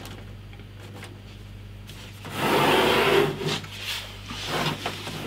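A Z7 Neo computer case being slid and turned on a desktop: a loud rubbing slide of about a second, starting a little past two seconds in, followed by a few lighter knocks and shuffles of handling.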